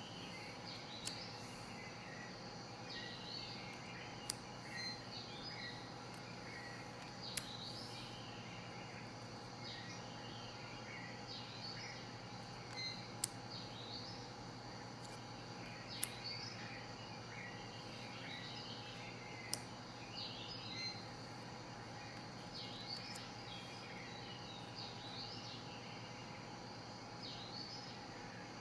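Cards laid one at a time onto a pile, each landing with a sharp tap every few seconds, while birds chirp and sing throughout over a steady low hum.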